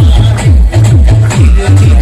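Loud electronic dance music with a heavy bass line of short, repeated downward-sliding bass notes under a steady, fast beat.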